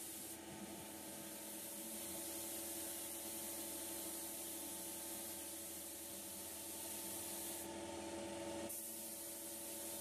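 Steady hiss of compressed air, as from a paint spray gun laying down primer, over a steady motor hum. The top of the hiss drops out for about a second near the end.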